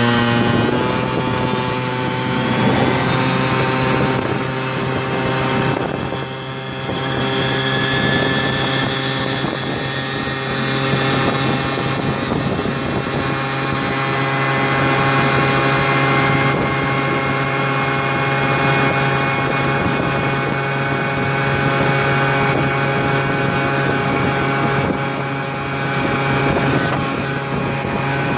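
Modified Piaggio Free 50 scooter's 50cc two-stroke engine at full throttle, holding a steady high-pitched drone that climbs slightly as the scooter accelerates to about 80 km/h.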